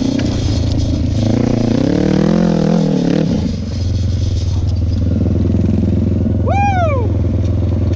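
650cc Kawasaki Ninja engine in a homemade off-road quad running under way across a grassy field, its pitch rising and falling about two seconds in, then holding steady.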